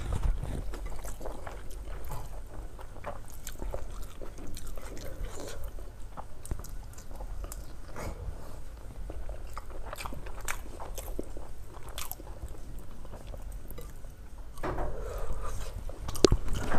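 A man chewing a mouthful of rice, egg curry and boiled egg, with many small wet clicks of the mouth. The eating sounds grow louder near the end.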